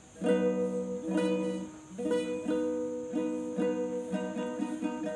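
Six-string guitalele (a small nylon-string guitar) strummed on one held chord, about ten strums, each ringing on; slow at first, then about two a second.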